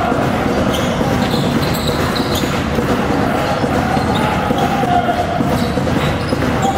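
A basketball game on an indoor court: a ball bouncing on the floor amid the steady noise of the hall, with a few short high squeaks.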